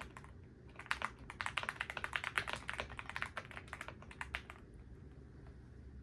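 Typing on a gasket-mounted aluminium mechanical keyboard with factory-lubed switches: a quick run of key clicks that starts about a second in and stops a little over halfway through.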